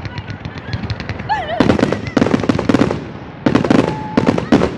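Fireworks display going off: rapid crackling bangs, with two bursts of dense, loud reports about one and a half and three and a half seconds in. A brief warbling whistle sounds about a second and a half in.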